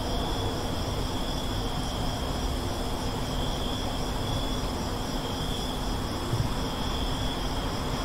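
Night traffic ambience: a steady rumble of road traffic with crickets trilling continuously over it, and one short low thump about six seconds in.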